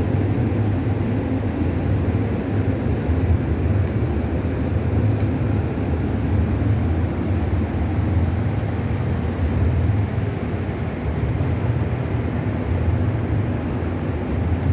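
Typical industrial sewing machine with a servo motor, running steadily without a break.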